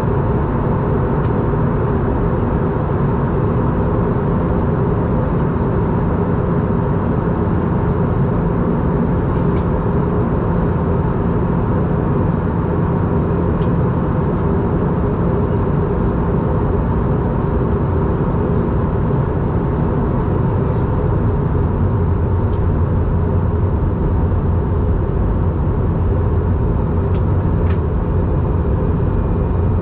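Steady in-flight cabin noise of an Airbus A320: an even rush of airflow and engine hum, with a few faint ticks.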